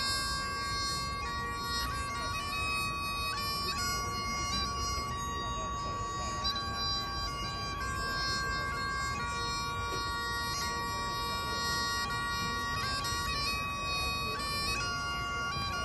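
Highland bagpipes playing a slow tune outdoors: a steady drone held throughout beneath a chanter melody that steps from note to note.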